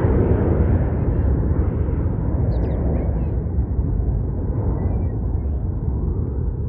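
Jet engines of a Boeing 737 climbing out after takeoff: a steady, deep rumble that slowly dulls and fades as the airliner draws away.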